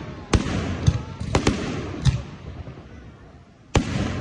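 Fireworks going off: about six sharp bangs of bursting shells at irregular intervals over a low rumble, with a short lull before a loud bang near the end.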